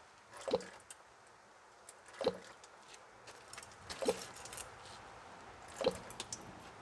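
Engine oil glugging from the drain-plug hole of a Kubota L3430 tractor's oil pan, four gulps about two seconds apart, each dropping in pitch: the oil filler cap was left on, so a vacuum in the crankcase makes the oil burp out in pulses as air is drawn back in.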